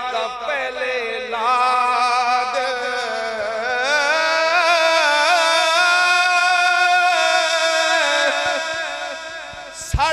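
A man singing a rubai, an Urdu devotional quatrain, solo in a slow, ornamented melody, holding one long note from about four seconds in to about eight seconds.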